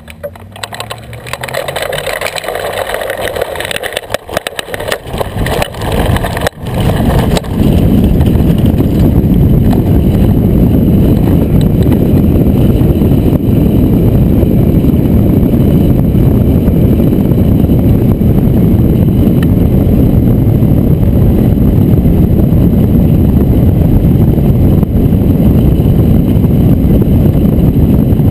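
Wind rushing over the keel-mounted camera's microphone as a hang glider is aerotowed, building over the first several seconds of the takeoff roll and then loud and steady once airborne. Near the start an engine rises in pitch as the tow plane powers up.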